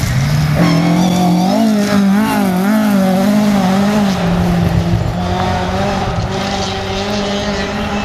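Ford Escort Mk2 rally car's engine revving hard through a gravel corner and accelerating away, the revs wavering up and down for a couple of seconds, then held high and steady.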